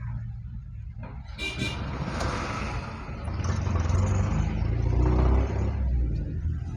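City street traffic moving slowly. Two short, high toots come about a second and a half in, then a deep engine rumble from close-by vehicles swells, loudest around four to five seconds in.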